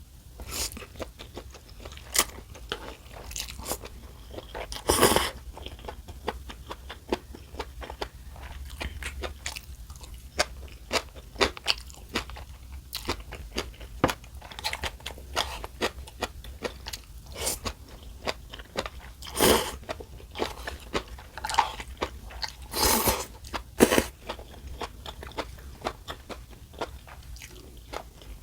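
Close-miked eating: irregular chewing and crunching of food with frequent sharp clicks, a few louder crunches standing out, over a faint low hum.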